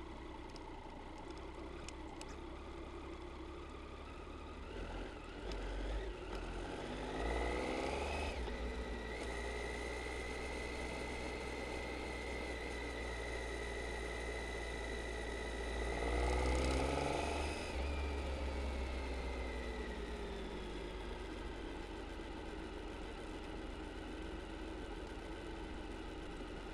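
Triumph Tiger 800 XC's three-cylinder engine running as the bike rides a dirt track. Its pitch rises twice, about seven seconds in and again around sixteen seconds, with a steady high whine held between, then falls away.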